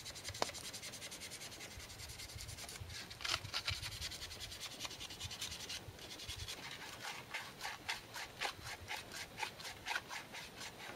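Sandpaper rubbed over a carved spruce wood spoon in quick, repeated back-and-forth strokes, faint and scratchy, as the spoon is smoothed.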